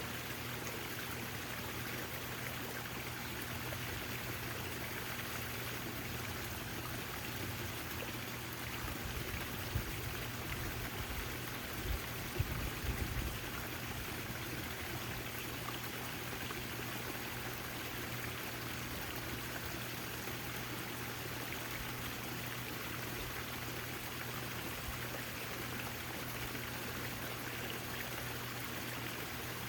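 Backyard fountain water splashing and trickling steadily, over a steady low hum. A few brief low thumps come about a third of the way in.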